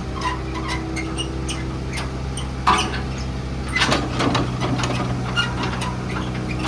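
Heavy machinery's engine running steadily, with scattered clicks, knocks and squeaks of metal on top; a louder knock comes about two and a half seconds in and another near four seconds.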